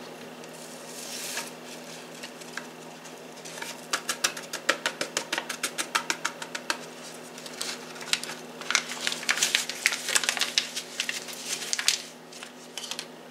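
Utensil stirring a powdered beef stew seasoning mix into broth in a measuring cup to break up the lumps, clicking against the cup about five times a second in two spells. There is a soft rustle about a second in.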